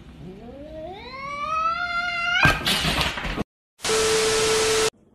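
A cat yowling, one long call that climbs steadily in pitch for about two seconds before being cut off by a burst of noise. Then a short dropout and a loud burst of TV-style static with a steady tone under it, a glitch transition effect.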